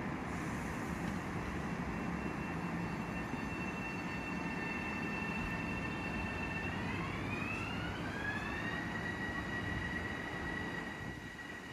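Metro-North electric multiple-unit commuter train running, with a steady rumble under a whine of several tones from its traction motors. About seven seconds in the whine rises in pitch over about two seconds and then holds, as the train picks up speed.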